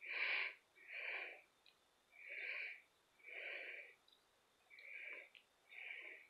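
Soft, wheezy breathing close to the microphone: about seven noisy breaths, drawn in and out roughly every two and a half seconds.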